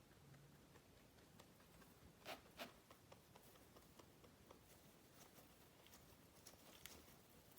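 Faint rustling and light ticking of a rabbit moving about, with two short noisy bursts close together about two and a half seconds in.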